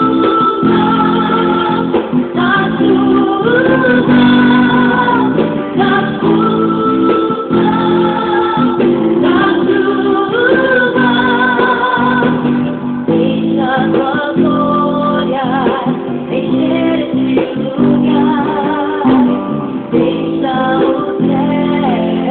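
Gospel song played with guitar, and a singing voice carrying the melody.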